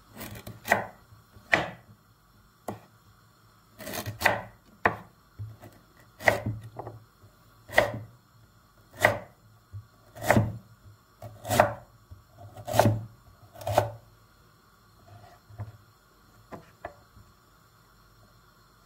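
Chef's knife cutting through a peeled celeriac and knocking on a wooden cutting board, one sharp cut about every second, the last few cuts fainter.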